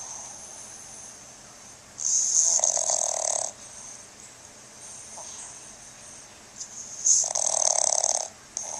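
A sleeping pug snoring: two loud rasping snores about five seconds apart, each lasting over a second, with softer snuffly breathing between them and another snore starting near the end.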